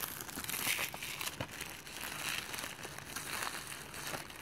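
Plastic shrink-wrap on a DVD case crinkling and tearing as it is pulled off by hand, in uneven crackles.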